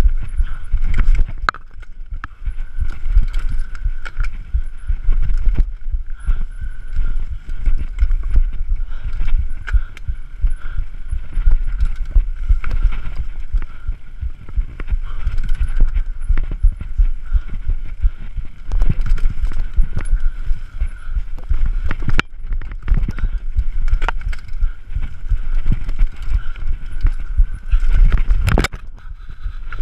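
Mountain bike descending rough forest singletrack at speed: a constant rumble of tyres on dirt with irregular knocks and rattles from the bike over roots and bumps. Near the end, a crash: a loud jumble of impacts as the bike and rider go down.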